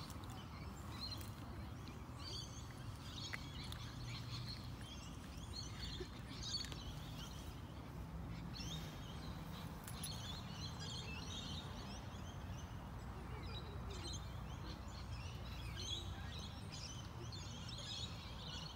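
Small birds chirping, many short calls scattered throughout, over a steady low background rumble.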